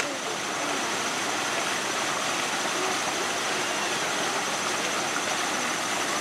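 Waterfall spilling down rock ledges into a pool: a steady rush of falling water.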